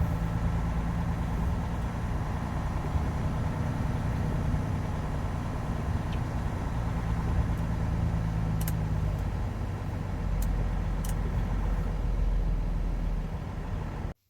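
Semi-truck diesel engine running at low speed, heard from inside the cab, with a few faint clicks. The sound cuts off suddenly near the end.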